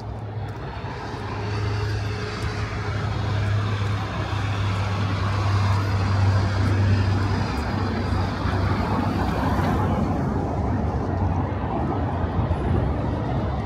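Road traffic passing on a city street: a truck's engine drone with tyre noise that builds to its loudest about six to seven seconds in, then stays steady.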